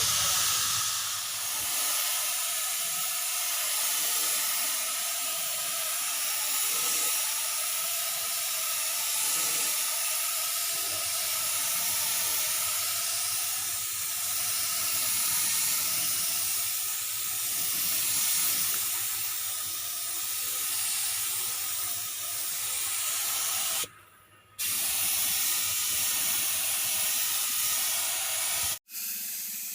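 Spray gun hissing steadily as paint is sprayed with compressed air. It cuts out for under a second about 24 seconds in, and again very briefly near the end.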